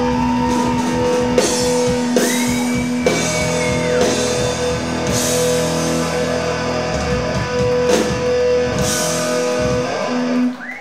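Live rock band, electric guitars, bass and drum kit, playing loud held chords with repeated cymbal crashes. The music breaks off near the end.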